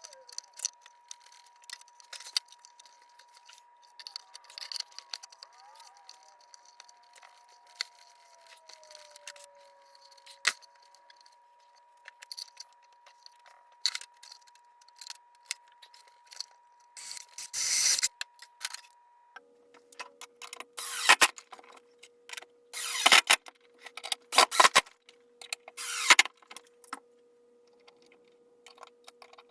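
Irregular clicks and clattering, as of small parts and tools being handled, louder and busier in the second half, over a faint steady whine.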